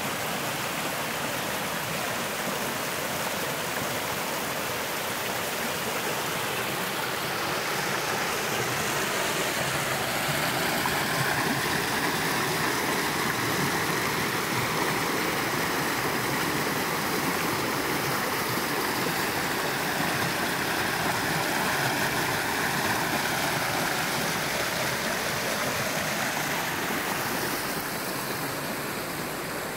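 Shallow rainforest creek rushing steadily over rocks and small cascades, easing off slightly near the end.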